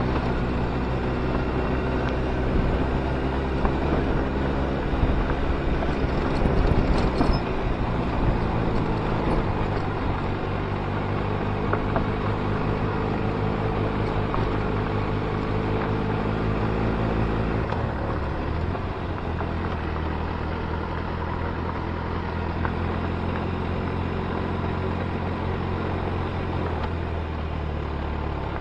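Motorcycle engine running steadily under way, with an even, low engine note; the note changes about two-thirds of the way through.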